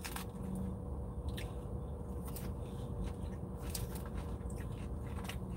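A person chewing salad close to the microphone, with scattered short, crisp clicks from biting and chewing, over a low steady hum inside a car.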